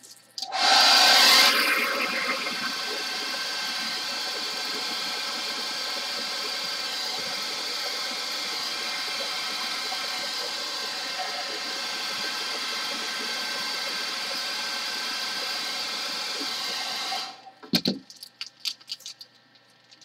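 Handheld hairdryer switched on about half a second in and blowing hot air steadily with its motor hum, loudest for the first second or so, then switched off suddenly near the end. A few light clicks and rustles follow once it stops.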